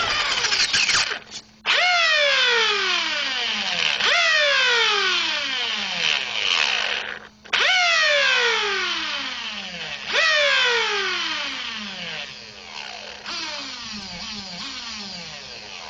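Electric motor of a Traxxas Slash 4x4 RC truck revving up sharply and winding down slowly, over and over, every two to three seconds, with shorter quicker blips near the end. The truck sits still while the motor spins freely, the sign of a stripped spur gear.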